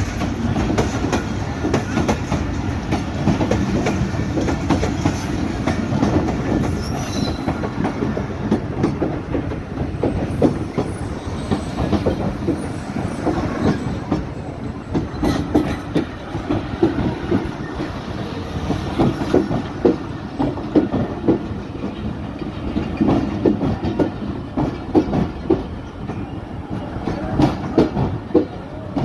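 Train running on the rails: a steady low rumble with the wheels clacking over the rail joints, the clacks coming sharper and more distinct in the second half.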